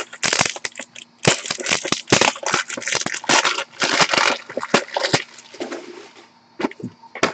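Plastic packaging crinkling and crackling as it is handled, in a dense run of rustling bursts that thins to a few scattered clicks about five seconds in.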